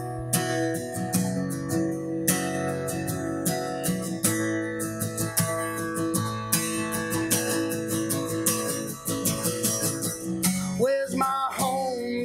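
Acoustic guitar strummed steadily in an instrumental break between sung lines; a man's singing voice comes back in near the end.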